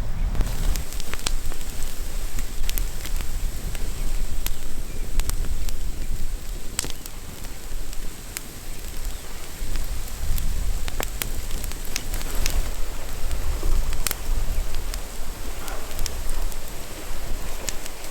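Wood campfire crackling: scattered sharp pops and snaps over a steady hiss, with a low rumble underneath.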